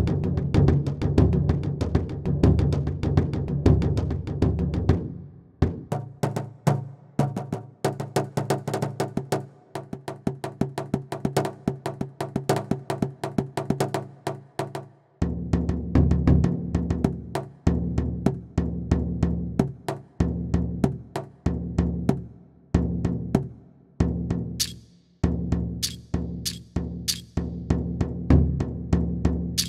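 Music from a sampled world-instrument library: rhythmic drum and percussion strikes over a sustained low tone. The low tone drops out from about five to fifteen seconds in, leaving the strikes alone.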